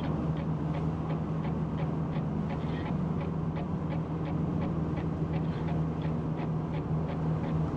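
Car cabin at expressway cruising speed: a steady engine drone with road and tyre noise. Faint regular ticks run through it, about two or three a second.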